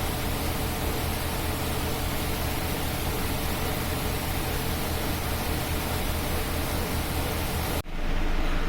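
Steady machine noise with a constant low hum from CNC grinding machinery running. It cuts off suddenly near the end, and a duller steady hum follows.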